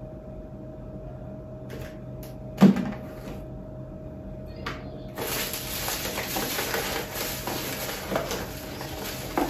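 A cardboard shoe box being opened and unpacked: a few small clicks and one sharp thump about two and a half seconds in as the box is handled, then from about five seconds in, continuous rustling of paper wrapping inside the box. A faint steady hum sits underneath.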